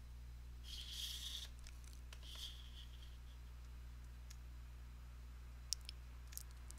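Faint computer mouse clicks near the end, over a low steady hum and a soft hiss about a second in.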